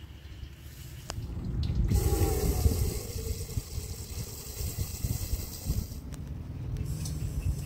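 Water poured into a cooking pot, a hissing gush that starts about two seconds in, is loudest for the first second and thins out about four seconds later. Low knocks and rumble sit underneath.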